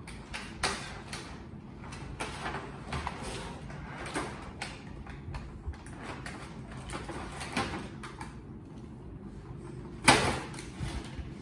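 Hard plastic being handled at close range: scattered clicks, scrapes and rustles of a toy truck's plastic body and clear plastic packaging, with one louder clatter about ten seconds in.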